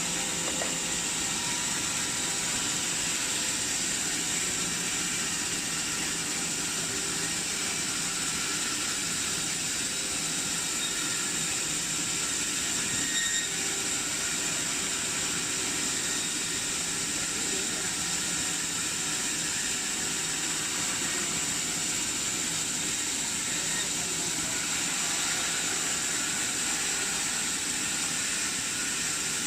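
MD400 horizontal band resaw running steadily, a continuous hiss with a high whine held at one pitch throughout.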